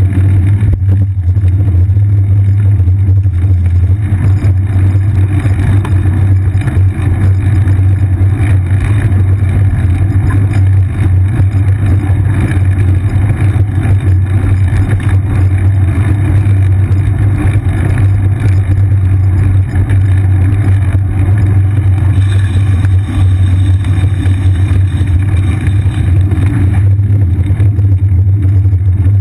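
Loud, steady low rumble of wind and road vibration picked up by a camera mounted on a bicycle seat as it rides through city traffic, with the noise of the surrounding cars mixed in.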